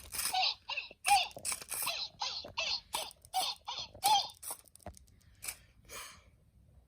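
Takara Tomy Hello Vui toy's electronic voice giving a quick run of short chirpy syllables, each dipping in pitch, that tails off about five seconds in.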